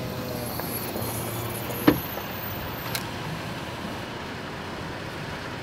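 Steady hum and hiss of a vehicle running, heard through an open car window, with one sharp click about two seconds in.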